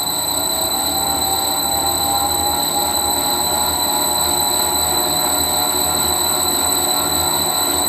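Mini lathe spindle and motor running steadily under power, a constant high whine over a steady mechanical hum.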